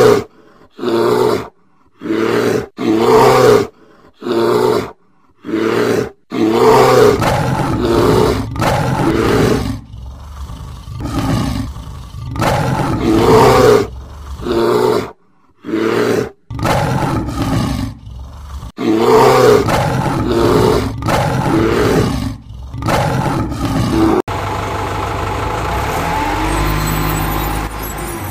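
A long run of loud animal roars, one after another with short silent gaps between them: roar sound effects for the toy lion and beast. About four seconds before the end it cuts to a steady engine sound.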